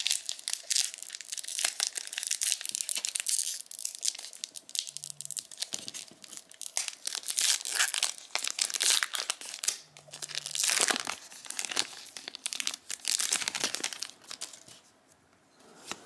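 Plastic wrapper of a trading-card booster pack being torn open and crinkled by hand: continuous crackling with sharp tearing sounds, dying away near the end.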